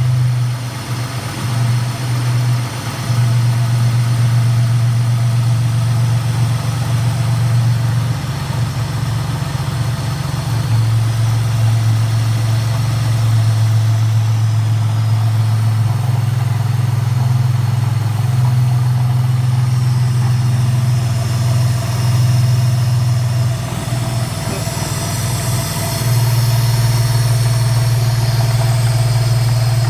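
2007 Dodge Nitro R/T engine idling steadily with the newly replaced AC compressor running while the system is being charged.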